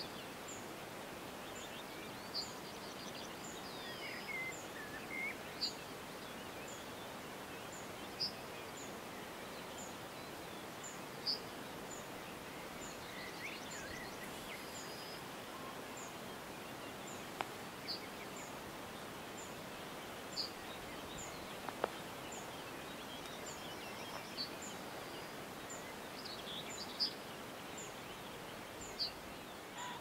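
Outdoor countryside ambience: a steady faint background hiss with scattered bird calls, a high short chirp repeated about once a second and louder single chirps every few seconds.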